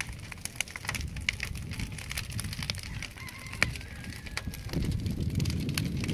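Wooden bonfire crackling, with many sharp, irregular snaps and pops from the burning planks, over a low wind rumble on the microphone.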